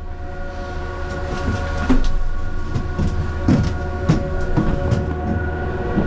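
Ski gondola cabin riding up the haul cable: a steady mechanical hum with a low rumble, broken by irregular knocks and rattles.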